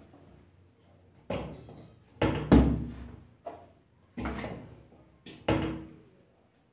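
A series of about seven sharp knocks and thuds on the work board, some in quick pairs, the loudest about two and a half seconds in: bread dough being cut and portioned into pieces for weighing.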